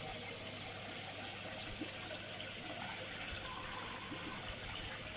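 Koi pond water running and trickling steadily, with a faint steady low hum beneath it.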